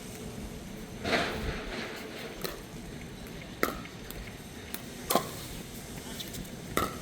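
Pickleball rally: paddles striking a hollow plastic pickleball back and forth, four sharp pops with a short ring, each about a second and a half apart, starting a couple of seconds in.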